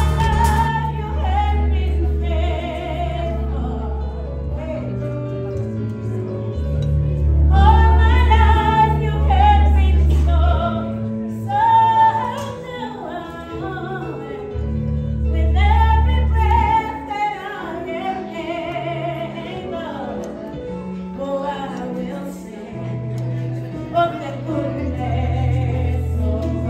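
Music: a voice singing a wavering melody over deep, sustained bass notes.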